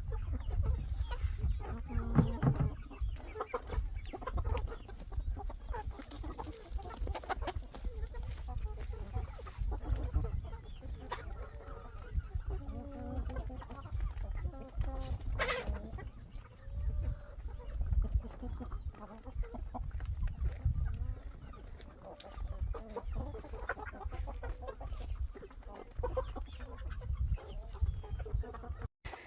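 A flock of chickens clucking irregularly, with one sharper call about halfway through, over a steady low rumble.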